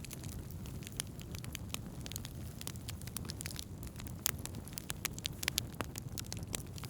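Wood fire burning with irregular sharp crackles and pops over a steady low rumble of the flames.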